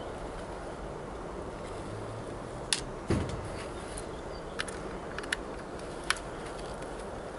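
A small crosshead screwdriver working a tiny screw out of a Hornby model locomotive's tender: a few sharp little clicks and a soft knock about three seconds in, over steady background noise.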